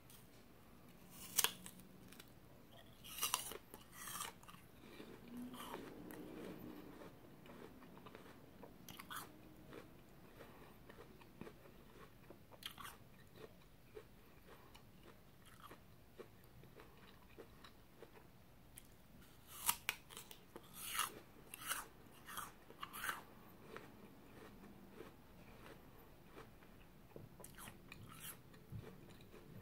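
A crisp red apple being bitten and chewed close to the microphone: a few sharp crunches in the first seconds, another run of crunches about two-thirds of the way through, and quieter chewing between.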